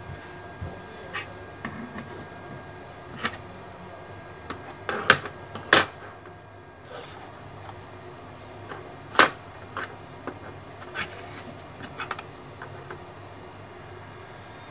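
Scattered light clicks and taps of small objects handled on a work table, with three sharper, louder clicks about five, six and nine seconds in.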